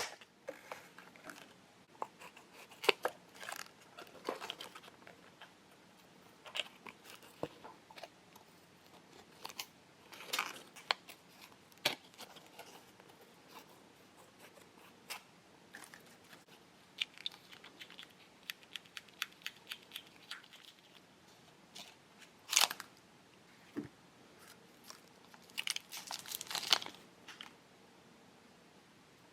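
Plastic packets of a Kracie Popin' Cookin' candy kit being handled and opened: scattered crinkles, tears and clicks with quiet pauses between. The loudest bursts come about 22 and 26 seconds in.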